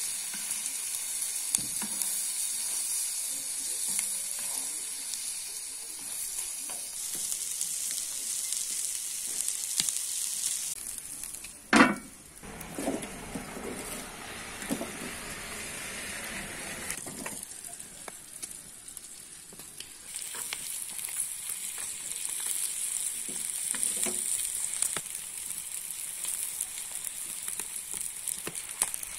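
Chopped lamb liver and offal with onions sizzling as they fry on a hot iron sac, stirred with a wooden spatula. About twelve seconds in there is one sharp, loud knock, after which the sizzle falls away for several seconds before coming back strongly.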